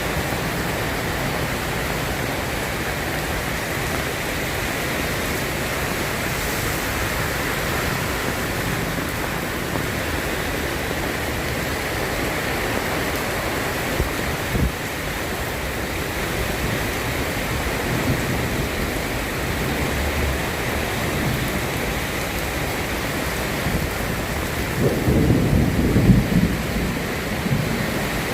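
Steady soft rain falling in a constant patter. A low rumble of thunder swells up near the end.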